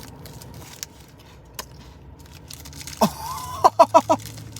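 A person eating a crunchy cereal treat bar: quiet chewing with a couple of sharp crunches. About three seconds in comes a closed-mouth vocal 'mmm' that rises, followed by four quick voiced pulses.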